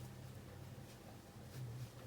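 Quiet room tone: a faint steady low hum with a few soft ticks.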